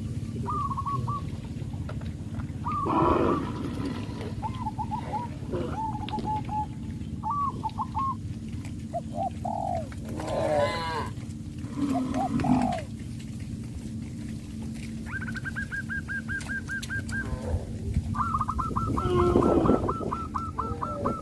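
Birds calling around a farm: many short chirping calls, and from about halfway on, runs of quick repeated notes. A few louder animal calls stand out among them, over a steady low hum.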